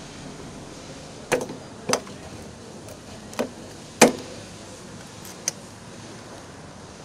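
Five short, sharp clicks and knocks from the locking fuel-tank cap of a Bajaj Pulsar NS200 as it is pushed shut and locked with its key. The loudest snap comes about four seconds in.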